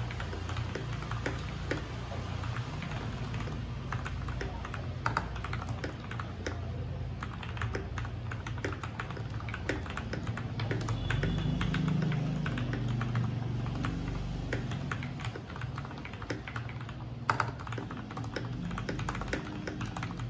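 Fast, continuous typing on a mechanical keyboard with lubed Cherry MX Hyperglide Black linear switches: a rapid, uneven run of keystrokes over a low steady hum.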